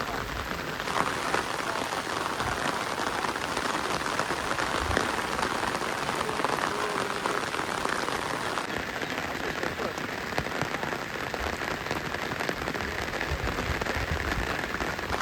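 Heavy rain falling steadily: an even hiss with many small drop impacts throughout.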